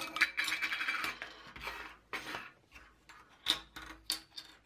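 Metal and plastic jar lids clattering as they are pulled apart and set down one by one on a wooden table. A dense rattle in the first second, then a string of separate clicks and taps.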